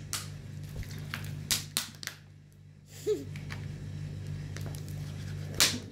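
A few scattered sharp clicks and knocks, the loudest just before the end, over a steady low hum. A brief murmur of voice comes about three seconds in.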